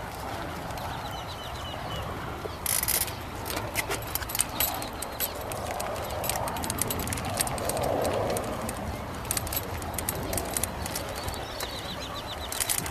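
Irregular clicking of footsteps and English bulldogs' claws on a concrete path as the dogs are walked on leashes, with a bird's short chirping run about a second in and again near the end.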